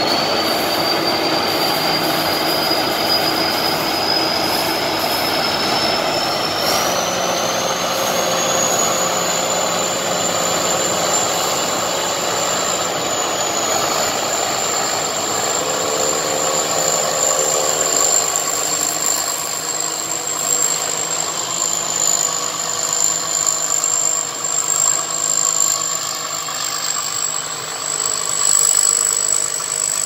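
Homemade tracked rice harvester running as it cuts through the rice, a steady mechanical din with a high whine that rises in pitch over the first several seconds and then holds level.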